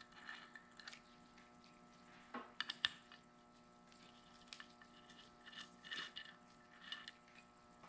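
Faint workbench handling sounds of a hydraulic cylinder and its small metal parts being worked by gloved hands: a quick cluster of light clicks and taps about two and a half seconds in, then a few softer ticks and rustles, over a low steady hum.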